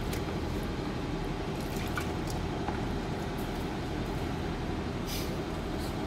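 Steady low mechanical hum, even throughout, with a few faint light clicks, the clearest about five seconds in.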